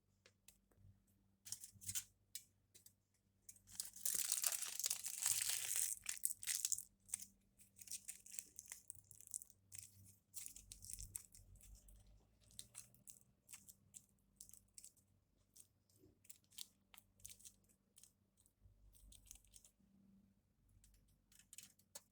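A tearing, crinkling rustle lasting about three seconds, followed by scattered small crackles and clicks.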